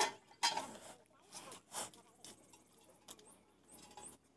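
Scattered light metal clicks and taps from hand tools and fittings at the head of a hand-pump tubewell being repaired, a few in the first two seconds and fainter ones later. A short bit of voice at the very start.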